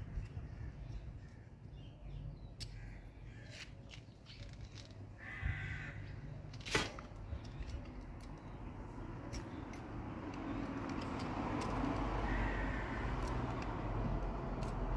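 Small clicks and scrapes of a screwdriver turning the terminal screws of a lamp holder while the wires are fastened, with one sharper click about seven seconds in. A bird calls briefly about five and a half seconds in, and the background noise swells over the last few seconds.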